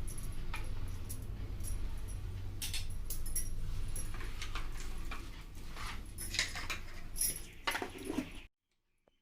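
Metal kitchen utensils clinking lightly and irregularly, most busily in the second half, over a steady low hum; everything cuts off abruptly about a second before the end.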